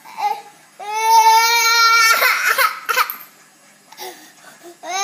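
A toddler crying: a long wail about a second in, a ragged sobbing breath after it, then a second wail starting near the end.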